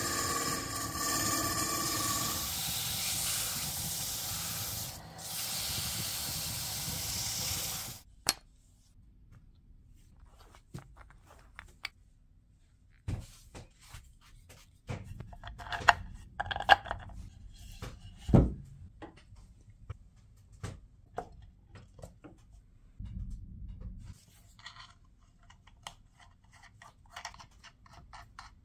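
Wood lathe running while a chisel cuts a turned wooden handle: a steady hum with scraping cutting noise that stops abruptly about eight seconds in. After that come quiet, scattered clicks, knocks and rubbing of parts being handled and fitted together.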